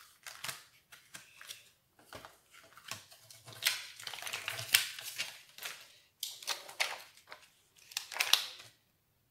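Paper and card rustling and scraping as a sheet of stick-on rhinestones is handled and pulled from its card packaging, in irregular short bursts, the loudest in the middle and near the end.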